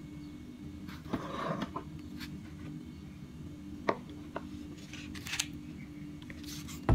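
Kitchen ingredients being handled and set down on a wooden cutting board: a brief rustle about a second in, one sharp knock about four seconds in, and a few light clicks, over a steady low hum.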